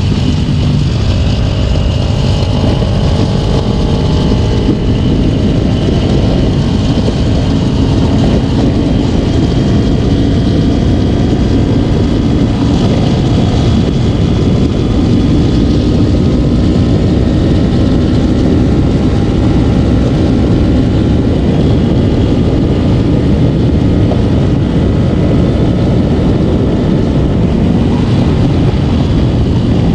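Heavy wind rumble on the microphone of a Kawasaki Ninja 250 riding at speed, with the engine's note rising and falling under the wind as the throttle changes.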